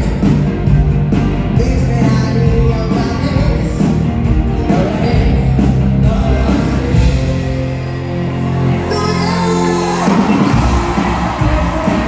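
Live pop-rock band with electric guitars playing, and a singer's voice over it. A little past the middle a low chord is held for a few seconds, then the full band comes back in.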